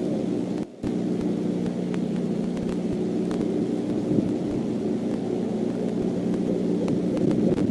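Steady low hum with several fixed tones and a faint hiss, the background noise of a nest-cam microphone at night, with a brief dropout about a second in.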